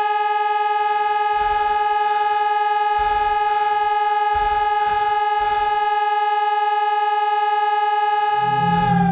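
A siren holding one steady pitch, loud and even, starting to wind down right at the end. Faint low rumbles come and go beneath it.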